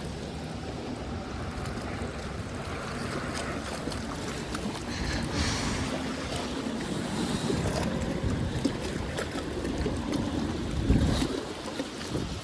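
Wind buffeting the microphone and small waves lapping at the lakeshore while a hooked trout is played in, with scattered light handling clicks. A brief low thump comes near the end.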